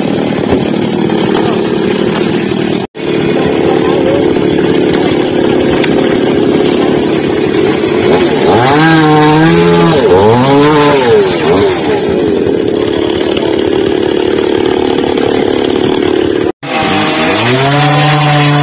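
Chainsaw running while cutting a fallen tree trunk, with a steady drone that is revved up and down around the middle and again near the end. The sound breaks off for an instant twice.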